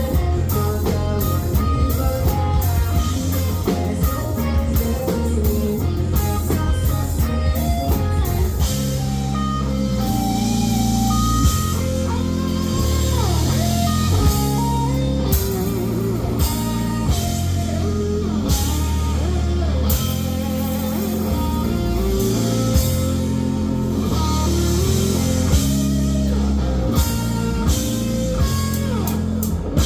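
Live rock band playing: guitars over a heavy bass line and a drum kit, with a sliding guitar note about twelve seconds in.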